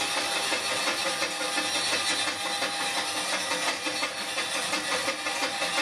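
Compound steam traction engine running while standing still, working as a stationary engine to drive a belt, with no load on its wheels; a steady mechanical running noise with hiss.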